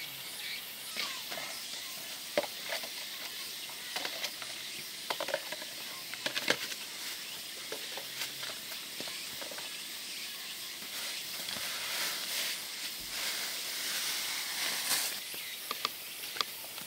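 Steady high hiss of insects, with scattered sharp clicks and taps.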